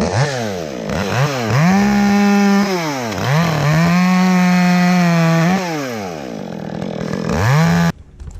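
Chainsaw revving up and down, held at full throttle twice for a second or two as it cuts through a maple limb. It drops back between cuts and stops abruptly near the end.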